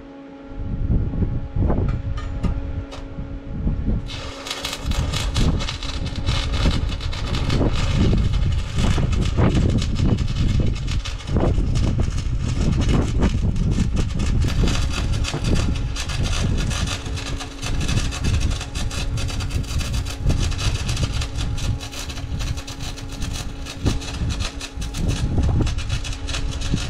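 Arc crackle of stick welding with 1/8-inch Lincoln 7018 rod, welding a cutting edge back onto a Caterpillar D9 dozer blade. The crackle starts about four seconds in and carries on steadily over a low hum.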